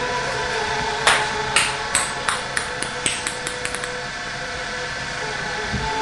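A small hard object dropped onto a wooden parquet floor and bouncing: about a dozen sharp knocks, starting about a second in, that come quicker and fainter until they die away before the four-second mark.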